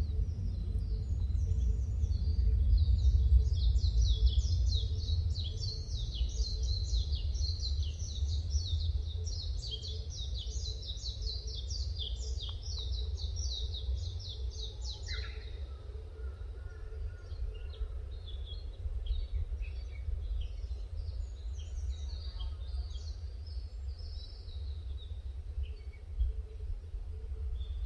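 Forest ambience of wild birds singing. A dense run of rapid, high-pitched chirps fills the first half, then thins to scattered chirps with a lower call around the middle. A steady low rumble runs underneath.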